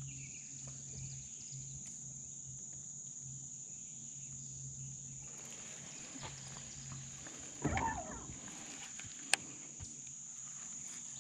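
Steady high-pitched insect chorus, with a low hum over the first several seconds. There is a brief pitched sound about eight seconds in, and a single sharp click about a second and a half later.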